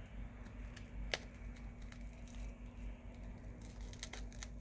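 Faint clicks and crackles of a thin pry tool working under the heated screen of a Samsung Galaxy A20, the adhesive giving way as the LCD starts to lift from the plastic bezel, with one sharper click about a second in. A steady low hum runs underneath.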